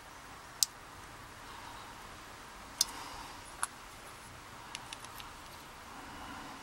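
Small metal clicks and taps from working a disassembled Yale 5-pin rim cylinder with a tool: three sharp clicks spread over the first few seconds, then a quick cluster of lighter ticks.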